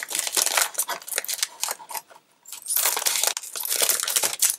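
Thin plastic biscuit wrapper crinkling and crackling as it is handled and pulled open by hand, in bursts with a brief pause about halfway through.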